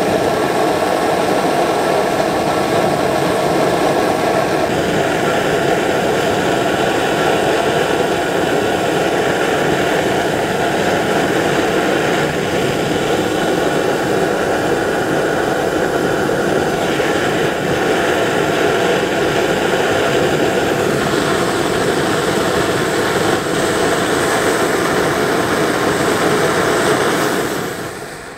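Vintage brass kerosene pressure stove burning with a steady rushing noise under a glass kettle, the water in it bubbling toward the boil. The noise fades near the end.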